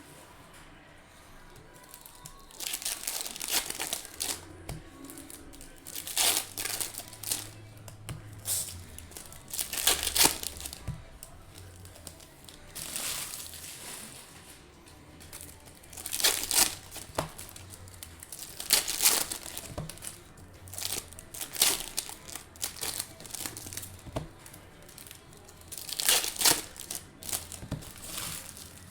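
Foil trading-card pack wrappers being torn open and crinkled, in repeated bursts every couple of seconds.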